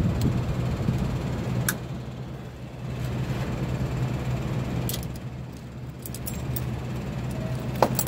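Metal hose-clamping pliers clicking as they are handled and clamped onto coolant hoses: a few sharp clicks, the loudest near the end. Under them runs a steady low engine hum.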